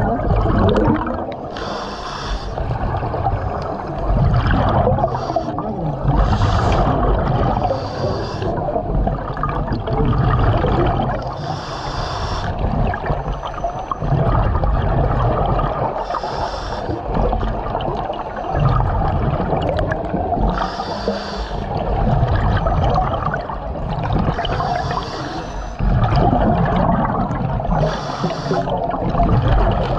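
A diver breathing inside a surface-supplied commercial diving helmet underwater. The regulator hisses and rushes on each breath, and exhaled air gurgles out of the exhaust in bubbles, about one breath every four to five seconds.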